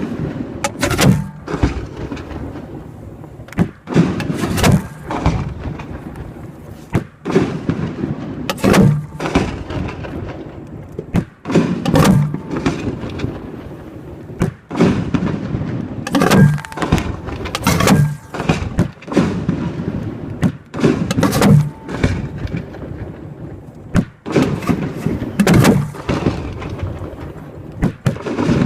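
Aerial fireworks shells being fired from mortar tubes at close range: an irregular series of loud bangs, each trailing off in a rumble, about one to two seconds apart.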